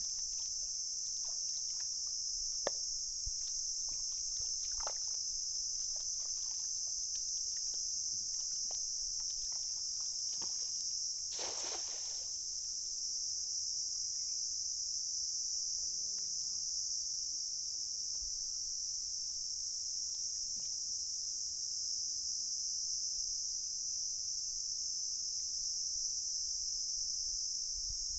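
Steady, high-pitched chorus of insects, with scattered small clicks in the first half. A little before the middle comes one short rush: a hand-thrown cast net landing on the river water.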